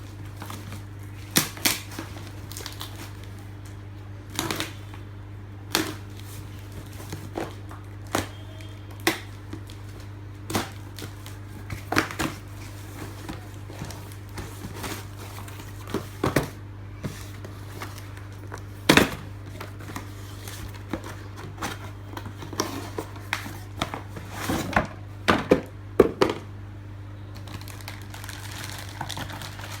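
Irregular clicks, taps and knocks from a Ricoh SP 111 toner cartridge and its packaging being handled, over a steady low hum.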